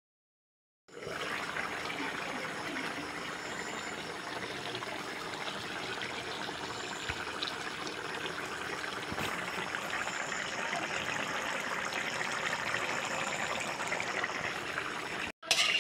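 Smoked beef stew simmering in a wok-like pan, its gravy bubbling and sizzling in a steady crackling hiss that starts about a second in.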